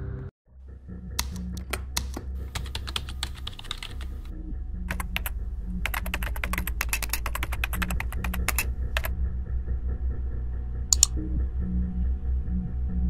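Laptop keyboard being typed on in two bursts of key clicks, the second denser, with one louder click near the end. Soft background music with a low steady bass runs underneath.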